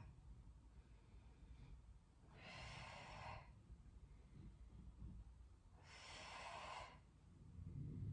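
A woman's faint paced breathing: two audible breaths about three seconds apart, each lasting about a second, timed to a Pilates leg-lift exercise.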